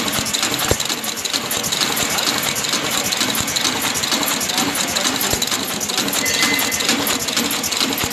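Vertical form-fill-seal pouch packing machine with a rotary cup filler running steadily: a dense, fast mechanical clatter that keeps an even level throughout.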